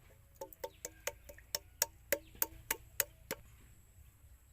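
A quick run of about a dozen light, ringing clinks, roughly four a second, that stop a little past three seconds in: a kitchen utensil knocking against a hard container while milk is being added for the ice cream.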